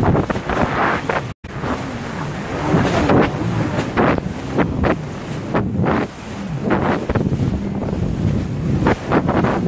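Wind buffeting the microphone over water rushing and splashing against the hull of a small powerboat running through open-sea chop, with the boat's engine note rising and falling. The sound cuts out for an instant about a second and a half in.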